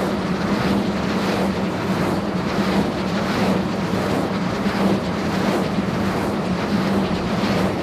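Wind turbine blades swishing as they rotate: a whoosh that swells and fades about twice a second over a steady low hum. This is the amplitude-modulation (AM) noise of turbine blades.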